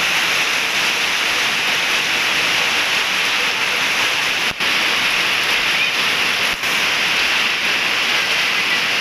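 Heavy downpour in a storm with strong gusting wind: a loud, steady rush of rain that drops out for an instant twice, about halfway through and again two seconds later.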